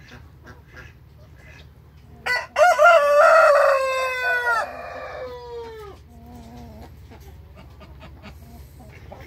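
Brahma rooster crowing once, starting about two seconds in. The crow opens with a couple of short notes, holds a long loud note, then trails off in a falling note, about three and a half seconds in all.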